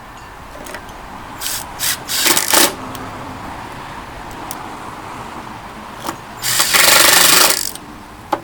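Power drill driving screws into wood: a few short bursts about a second and a half in, then one longer run of about a second near the end, fastening the hog head clamp to a wooden spacer block.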